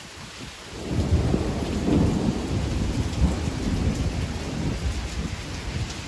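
Thunder rumbling, rising about a second in and slowly fading over several seconds, over steady rain.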